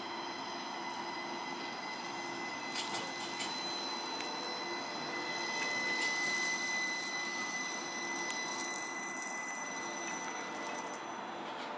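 Tucson Sun Link streetcar running along the street with a steady electric whine from its drive, getting loudest about halfway through as it comes closer, over a hiss of road noise.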